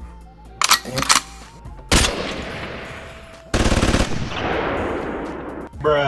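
Gunfire sound effect: two sharp clicks, then a single loud shot about two seconds in with a long fading tail, then a rapid burst of automatic fire about three and a half seconds in that dies away over two seconds.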